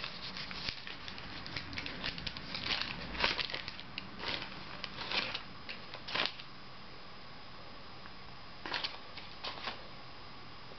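Paper wrapping crinkling and rustling by hand as a bar of soap is unwrapped. The crinkles come thick and irregular for about six seconds, then stop, with a couple of brief rustles again near the end.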